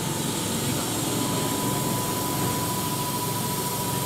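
Keihan 7000-series electric train standing at a station platform, its onboard equipment running with a steady whooshing noise and a thin, steady high tone.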